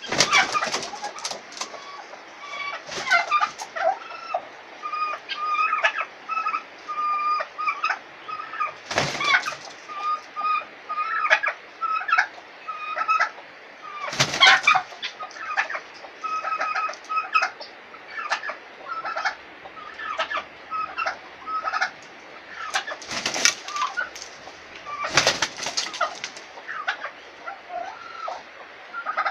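Chickens clucking in short, repeated calls, broken a few times by loud bursts of wing-flapping as a tom turkey and a rooster fight.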